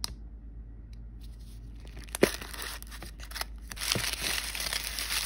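Fingernails tapping on a hollow plastic L.O.L. Surprise ball, a sharp click about two seconds in, then crumpled wrapping paper crinkling and rustling as it is pulled out of the ball, loudest near the end.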